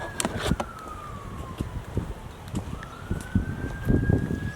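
Emergency-vehicle siren on a slow wail: one tone that slides down from a held high note and climbs back up about three seconds in, over irregular low thumps and rustling.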